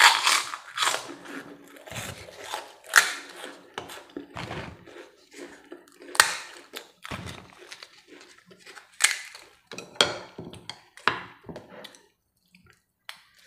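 Close-up crunching and chewing of crisp, plain crackers (kerupuk), with irregular crunches that fade out near the end.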